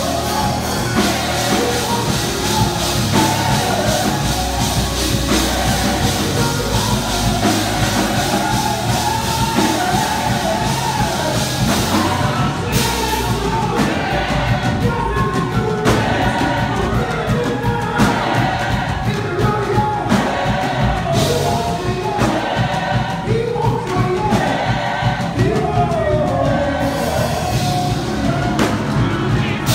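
Gospel music: voices singing over a band with a steady bass line and drum beats.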